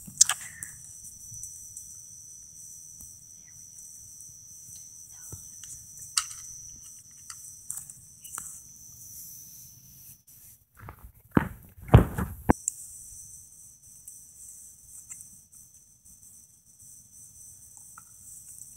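Steady, high-pitched trill of crickets, with a few faint clicks. About eleven seconds in comes a short cluster of loud knocks and rustling close to the microphone.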